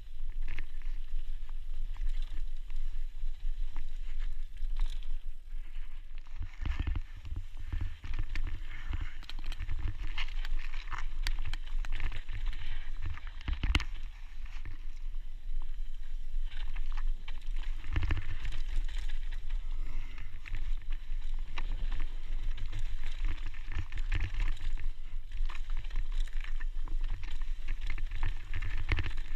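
Mountain bike riding fast down a dry, loose dirt trail: tyres crackling over dirt and stones, with the bike rattling and knocking over bumps, the sharpest knock about fourteen seconds in. A steady low rumble of wind on the camera's microphone runs underneath.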